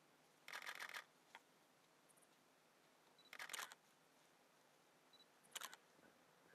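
A camera shutter firing in three short bursts of rapid clicks: about half a second in, a little past three seconds, and near the end, the later two each just after a brief high beep. Between the bursts it is near silent.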